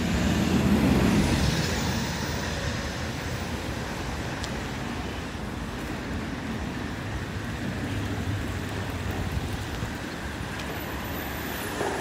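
Street traffic: a vehicle passes in the first couple of seconds with a falling high whine, then a steady traffic hum.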